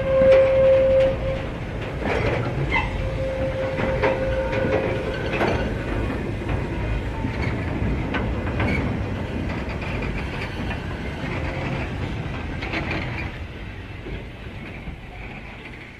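A train running past on the line and fading away, its wheels clicking over rail joints. A steady high tone sounds for about the first second and returns more faintly a few seconds in.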